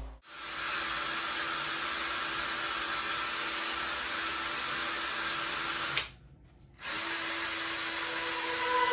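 Cordless drill spinning a round brush attachment against carpet pile, scrubbing a stubborn stain: a steady whir that stops briefly just after six seconds, then runs again.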